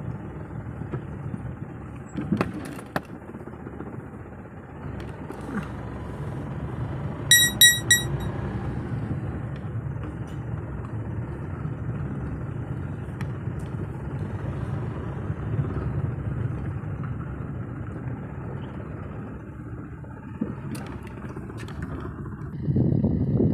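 Car driving on a paved road, heard from inside the cabin: a steady low rumble of engine and tyres. A couple of sharp knocks about two seconds in, and a quick run of about four short high beeps about a third of the way through.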